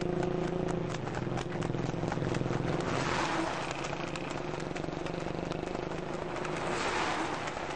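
Horse trotting hard on a paved road pulling a two-wheeled cart, hooves and cart clattering, with motor vehicle engines running close behind. A rush of noise swells twice, about three and seven seconds in.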